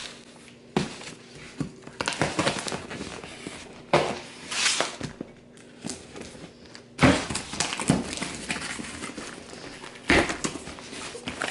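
A cardboard shipping box being handled on a countertop and its packing tape pulled off: uneven bursts of scraping and rustling with a few knocks.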